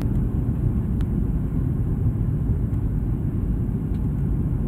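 Airliner cabin noise heard from a window seat on approach to landing: a steady low rumble, with a couple of faint ticks.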